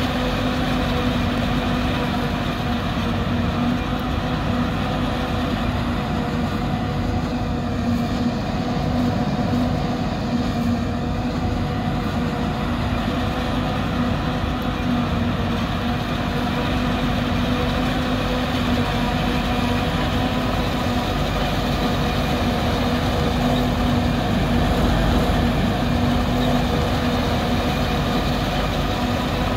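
New Holland 2100 self-propelled forage harvester running steadily under load while chopping corn, a constant heavy machine drone with a steady hum.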